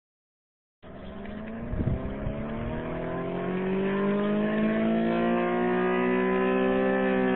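ACA Allertor 125 rotating electromechanical warning siren winding up in attack mode: it cuts in suddenly a little way in, its tone rising slowly over several seconds and starting to ease back down near the end. A few thumps sound about a second after it starts. The uploader says it sounds a little sick.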